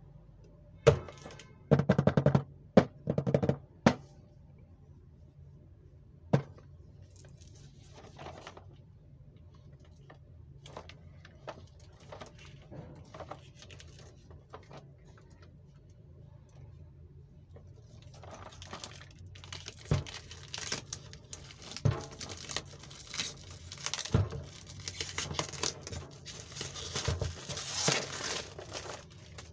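Clear plastic shrink wrap on a cardboard box crinkling and tearing as it is peeled off by hand. A burst of loud sharp crackles comes in the first few seconds, then sparse faint crinkles, then dense, continuous crinkling through the second half.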